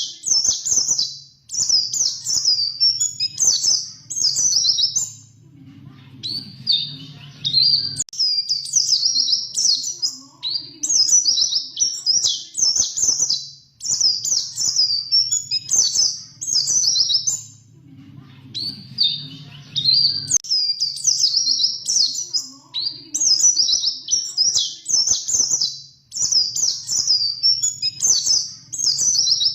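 White-eye (pleci) singing a long rolling song of rapid, high twittering phrases. It comes in runs of several seconds, with brief pauses about six and eighteen seconds in.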